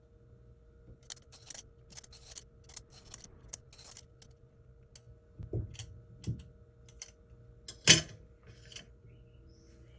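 Kitchen handling sounds: light rustling and clicking, then two dull thumps and one sharp knock about eight seconds in, over a faint steady hum.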